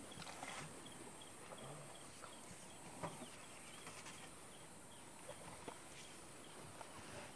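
Faint outdoor bush ambience: a short, high chirp repeating about two to three times a second, with a few soft snaps and rustles.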